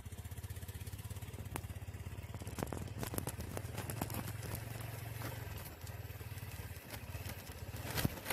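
A small engine running steadily with a fast, even pulse, with scattered clicks and knocks over it and a louder knock near the end.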